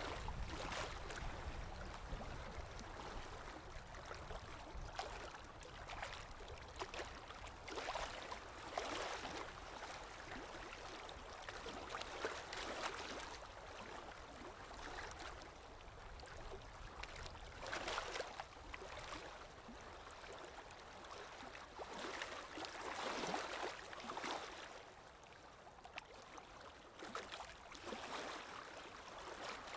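Water in a small stream flowing and gurgling, swelling and easing every few seconds.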